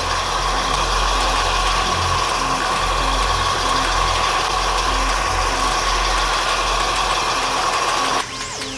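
Car engine idling steadily under a continuous rush of running water, as the radiator is flushed until the water runs clear. The sound cuts off abruptly near the end.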